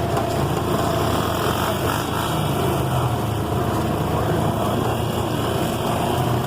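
Off-road vehicle's engine running steadily, a continuous low engine hum with no breaks.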